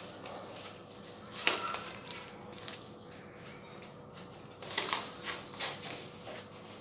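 Product packaging being handled and unpacked: a few short crinkles and clicks about a second and a half in, and a cluster of them near the end.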